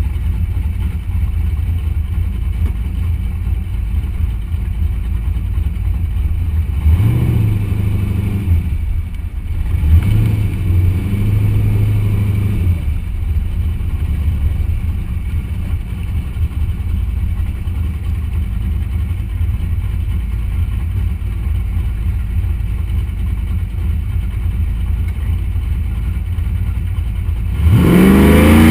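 Car engine idling as the car rolls slowly, with short bursts of revs about seven and ten seconds in. Near the end the revs climb sharply and the engine gets louder.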